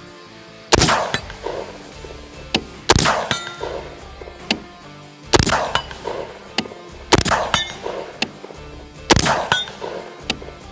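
Sharp metallic clangs with short ringing tails, about one loud hit every two seconds with lighter ones in between, over steady background music.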